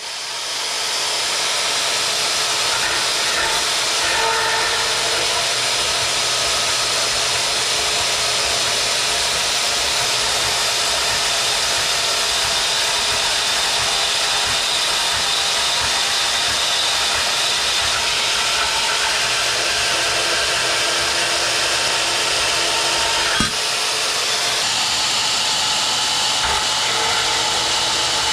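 Power tool cutting steel angle iron into sections, a steady, loud, high-pitched whine and grinding, with one brief knock about 23 seconds in.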